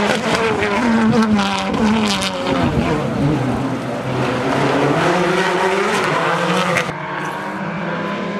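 Rally car at full effort on a stage. Its engine revs climb and drop through gear changes, with sharp cracks in the first two seconds. The engine sound falls away abruptly about seven seconds in as the car goes past and out of sight.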